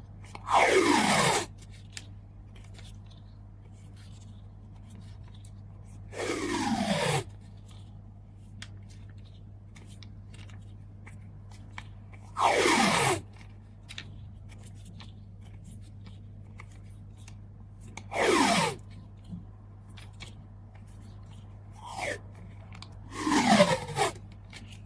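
Packing tape pulled off the roll in five long strips, about six seconds apart, each a second-long screech that falls in pitch as it unrolls.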